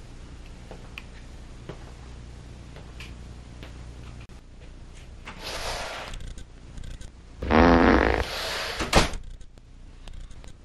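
A loud, buzzy fart lasting about a second, about seven and a half seconds in. It comes between stretches of hissing air, with a sharp click just after.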